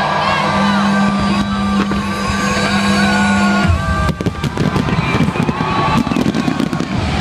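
Large fireworks display going off: a steady low note and many short rising and falling whistles at first, then from about four seconds in a dense run of rapid bangs and crackles.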